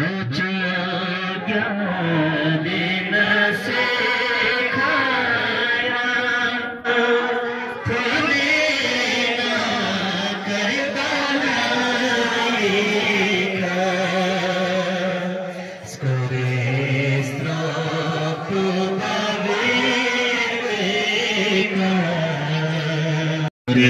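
Male chanting: a melodic, drawn-out devotional recitation in a low voice.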